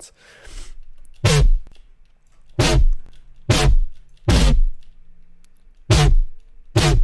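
Gritty FM-synthesized bass hits from a Serum patch, heavily distorted and compressed and run through a comb filter with a low cutoff, played as six short stabs at an uneven rhythm, each with deep sub-bass.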